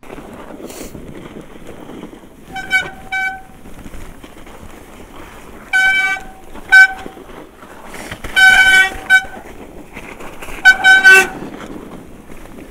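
Mountain bike brakes squealing in repeated short, loud bursts as the rider brakes on the descent, each squeal a steady high pitch, the longest about two-thirds of the way through, over the steady hiss of tyres rolling through snow.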